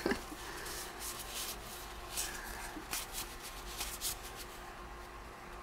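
Baseball trading cards being thumbed through by hand, one sliding over the next, giving a run of soft rubs and flicks about two or three a second.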